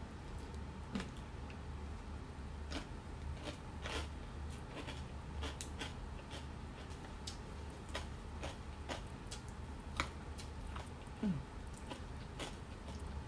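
Person eating close to the microphone: scattered small clicks and smacks of chewing and of a plastic fork against plastic packaging, over a steady low hum.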